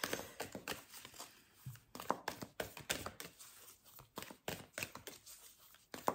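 Tarot cards being shuffled by hand: a quick, irregular run of soft snaps and riffling clicks.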